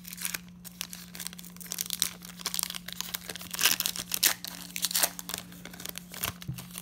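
Foil wrapper of a Pokémon trading-card booster pack being torn open and crinkled by hand, in irregular crackles that are loudest a little past the middle. Near the end the cards slide out of the wrapper.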